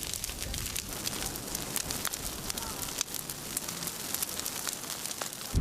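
Wildfire burning through brush, a steady hiss with many sharp crackles and pops.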